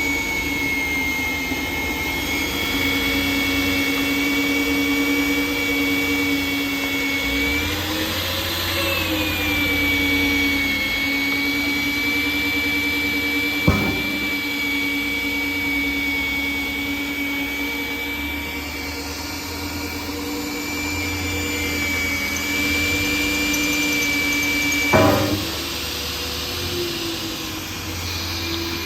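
Magnetic drill running steadily with a high whine while drilling into a steel girder. Its pitch dips and recovers once about a third of the way in, a sharp click comes about halfway, and near the end a louder click is followed by the high whine dropping away.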